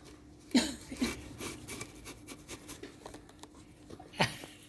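Cats playing: light scratching and rubbing with scattered small ticks, and two louder knocks, one about half a second in and one near the end.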